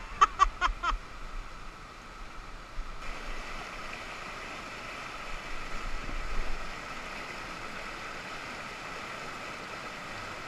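River rapids: whitewater rushing over rocks, a steady noisy rush that turns brighter about three seconds in.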